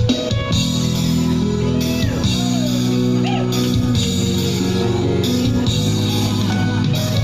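Instrumental passage of a Thai pop song: band music with steady sustained chords and no clear sung lyrics.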